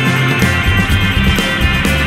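Background rock music with a steady beat and a moving bass line.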